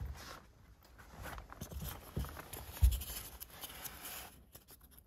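Scratching, rustling handling noises with scattered clicks and low knocks, the loudest a single dull thump about three seconds in.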